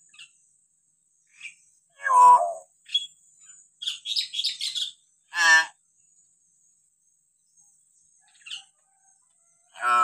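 Hill myna calling: a loud pitched call about two seconds in, a quick run of high chattering notes around four seconds, another loud call at about five and a half seconds, and a third as it ends, with a few faint short notes in the gaps.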